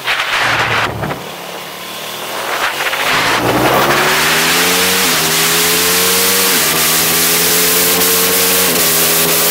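Aprilia SXV 550 supermoto's V-twin engine accelerating hard out of a corner after a short loud burst of noise at the start, revs climbing and then shifting up three times, the pitch dropping sharply at each shift and rising again, under steady wind rush on the onboard microphone.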